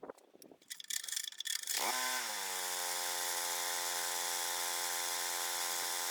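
A few clicks and knocks of handling, then about two seconds in a power tool's motor starts and runs steadily at one pitch with a hiss.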